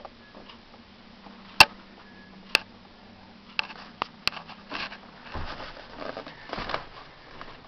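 Several sharp clicks and knocks, the loudest about one and a half seconds in and another a second later, then soft rustling and shuffling, over a low steady hum that stops a little past halfway.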